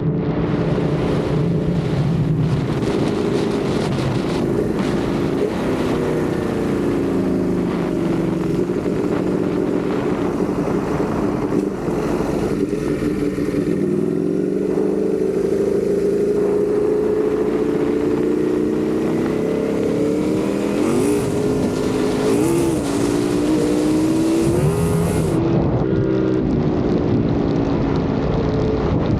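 Ducati Panigale V4 engine heard from the bike while riding, its note rising and falling with throttle and speed. A few quick revs up and down come about 20 to 25 seconds in, over a steady rush of wind noise.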